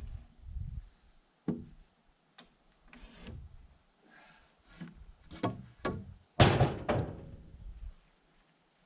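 A series of sharp wooden knocks and thuds on a heavy log in a log cabin wall, about seven in all at uneven spacing, the loudest and heaviest about six and a half seconds in with a short rumbling tail.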